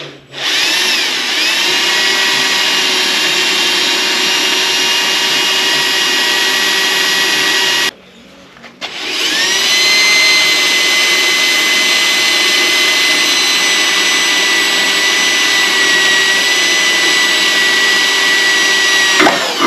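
Power drill spinning a cobalt bit to drill out a broken, rusted screw. It spins up into a steady whine, stops briefly about eight seconds in, then starts again and runs on until the bit is through the screw.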